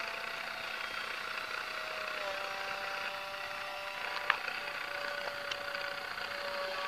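Small electric model-plane motor and plastic propeller whining as the free-flight foam plane climbs away, one steady tone that sinks slightly in pitch. A single sharp click comes about four seconds in.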